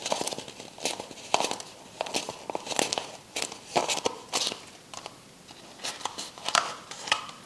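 Crinkling and crackling of paper and cardboard being handled, in irregular sharp clicks.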